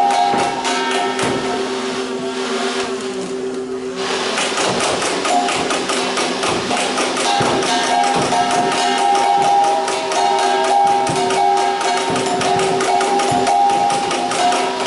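Nerf Rival Nemesis firing foam balls on full auto, heard as a fast, dense run of clicks and knocks from shots and hits. There is a short lull about two to four seconds in. Background music plays over it.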